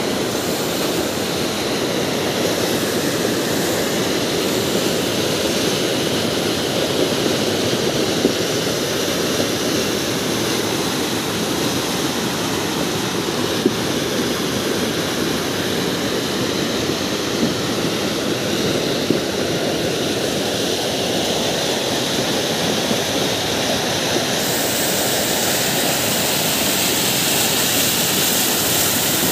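Muddy floodwater rushing over a rocky road and down a channel, a loud, steady, unbroken noise. A sharper hiss joins near the end.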